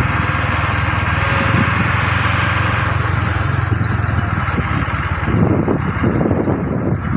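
Small engine running steadily, with wind buffeting the microphone over the last couple of seconds.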